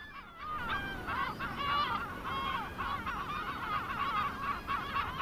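A flock of gulls calling, many short cries overlapping one another.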